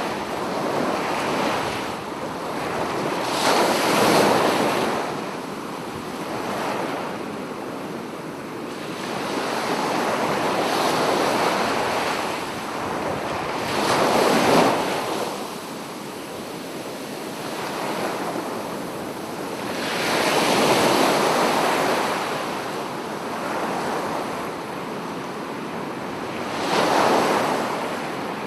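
Sea waves breaking on a beach. The surf rises and falls in surges every few seconds as each wave breaks.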